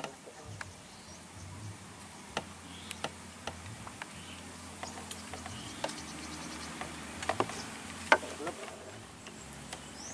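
Quiet outdoor ambience of faint insect buzzing with scattered sharp clicks, the loudest a small cluster about seven to eight seconds in.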